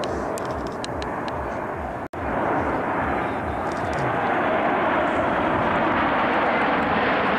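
Jet noise from a formation of Northrop F-5E Tiger II jets, each with two J85 turbojets, flying past: a steady rushing roar that swells louder about four seconds in. The sound breaks off for an instant about two seconds in.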